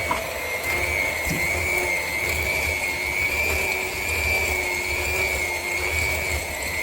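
Electric mixer running steadily with a constant whine, its beaters creaming butter and sugar in a bowl.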